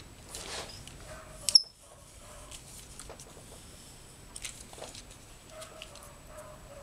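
Quiet handling sounds while hair is being curled with a curling tong. A short rustle comes first, then one sharp click about a second and a half in.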